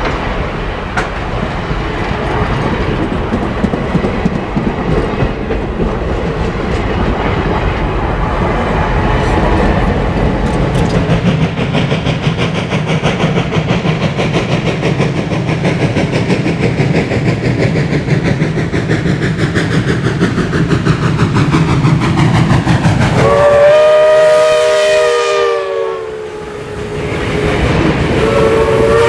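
Steam-hauled passenger train passing close by: steady rumble and clatter of wheels on the rails. About 23 seconds in, the steam locomotive's whistle blows a loud chord whose pitch drops as it goes by, and it blows again near the end.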